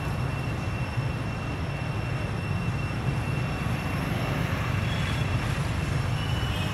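Steady low rumble of outdoor background noise, with a thin, steady high tone above it.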